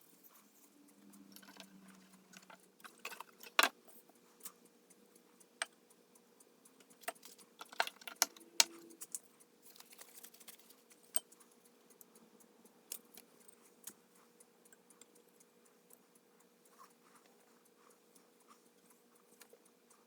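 Scattered light clicks and metallic taps from small parts being handled and fitted by hand, with a few sharper clacks around four and eight seconds in, over a faint steady hum.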